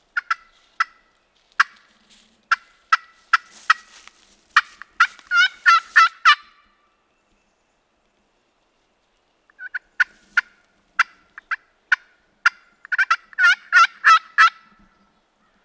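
Two bouts of loud turkey calling. Each starts as spaced, sharp yelping notes that speed up into a fast rolling run: the first run is about five seconds in, the second near the end.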